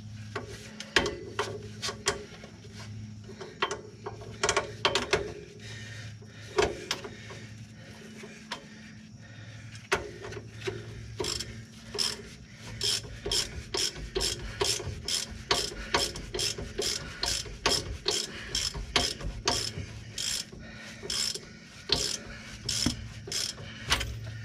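Hand socket ratchet clicking in short runs as it tightens the lower rear shock absorber bolt on a Mercedes ML W163. The clicks come faster and more evenly in the second half, over a low steady hum.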